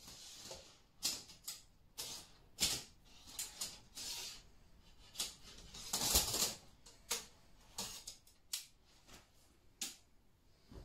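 Aluminium tent poles clicking and rattling as they are handled and flexed into arcs, a dozen or so sharp clicks with short scrapes between them and a longer scraping rustle about six seconds in.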